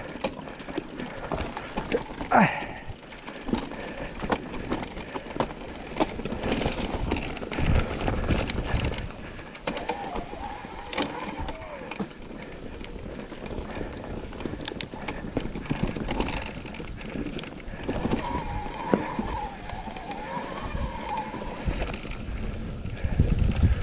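Electric mountain bike ridden over a rough trail: constant rattling and clicking of the bike and tyres over rocks and roots, with low rumbles.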